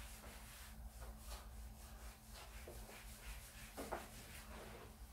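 Whiteboard eraser wiping across a whiteboard: faint, repeated rubbing strokes.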